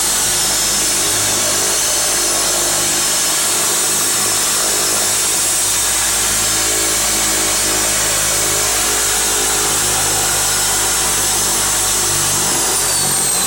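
Twin turboprop engines of a de Havilland Canada DHC-6 Twin Otter floatplane, heard from inside the cabin: a loud, steady engine drone with a high turbine whine as it taxis on the water. Near the end the whine falls in pitch as the power is brought back.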